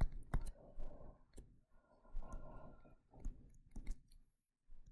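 Stylus tip tapping and scratching on a tablet screen during handwriting: a scatter of irregular clicks and short scrapes.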